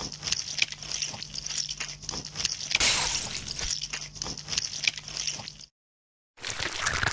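Wet mud squelching and squishing: a dense run of small wet clicks and drips over a low steady hum, busiest about three seconds in. It cuts out abruptly near six seconds and resumes briefly just before the end.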